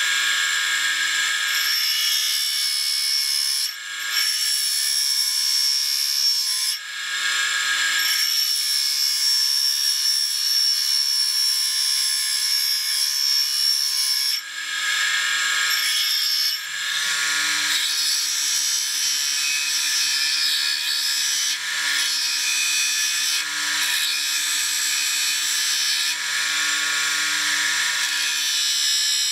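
Small bench grinder with a diamond wheel running while the brazed carbide tip of a lathe parting tool is ground against it: a steady motor hum under a loud high grinding hiss. The hiss breaks off for short moments several times as the tool is lifted off and set back on the wheel.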